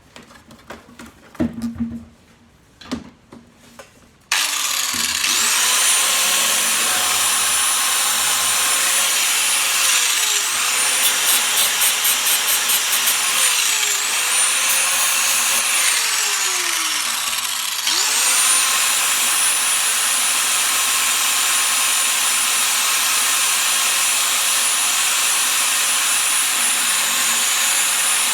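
A few knocks, then an angle grinder switches on about four seconds in and runs with a high whine. Its pitch sags and recovers three times as it is loaded against the fibreglass being trimmed, then it runs steadily.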